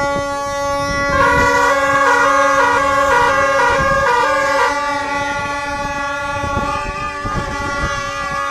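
Horns blowing: one long held note throughout, joined from about a second in by a second horn rapidly switching between two pitches for a few seconds.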